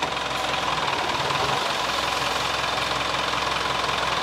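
Engine of a tipper lorry running steadily while its raised bed empties a load of sand.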